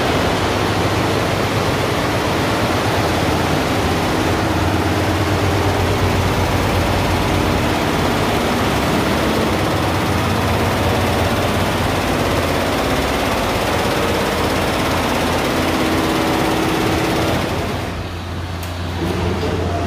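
Multi-head computerized embroidery machines running, a steady mechanical noise with a constant low hum; it dips briefly near the end.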